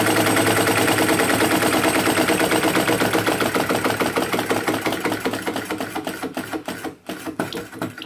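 Hu SH-02 flame licker (vacuum) engine running with a fast, rhythmic clatter of strokes. It slows from about four seconds in, the strokes spacing out, and dies away near the end.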